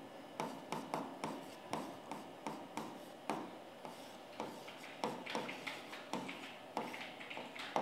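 Stylus tapping and scratching on the screen of an interactive display board while writing by hand: a string of short, uneven clicks, about two to three a second, with faint scraping between them.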